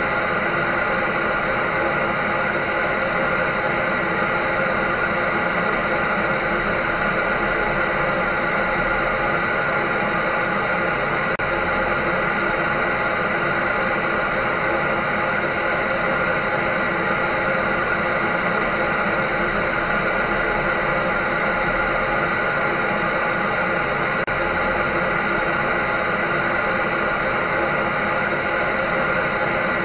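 Electric dryer running steadily: a constant whoosh of rushing air with a steady motor hum and whine running through it, unchanging in level.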